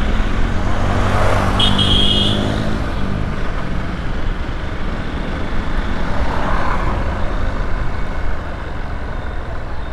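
Motorcycle ridden slowly through city traffic: its engine runs with a steady rush of road and wind noise. A short high beep sounds about a second and a half in, and the engine eases off about eight seconds in.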